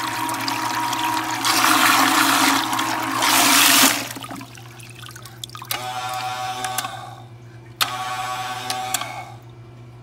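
12-volt bilge pump running submerged in a bucket, churning and splashing the water loudly. About four seconds in the water noise drops away and the pump motor whirs in two short runs, the second starting with a click.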